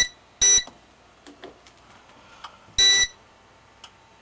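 Short, high electronic beeps from a Fireshield fire alarm panel, three of them at uneven intervals (one at the start, one about half a second in, one about three seconds in), with a few faint clicks between them, as the voice-evacuation drill is being stopped.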